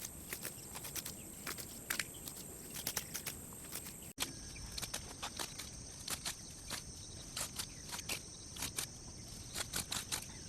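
Footsteps through dry grass, an irregular run of short crunches, over a steady high buzz of insects. There is an abrupt change in the background about four seconds in.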